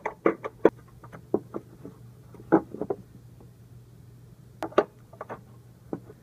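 Irregular clicks, taps and light clunks of hands handling hoses and parts in a van's engine bay, with a brief flurry of knocks near the start, a louder knock about two and a half seconds in and a pair of sharp clicks near the end. A steady low hum runs underneath.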